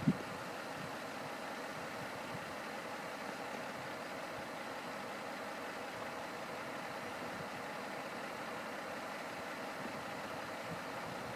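Steady engine hum of an idling road vehicle, unchanging throughout.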